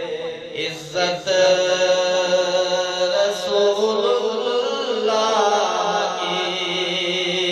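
A man reciting an Urdu naat, singing solo and unaccompanied into a microphone, with long held notes that bend and glide in pitch.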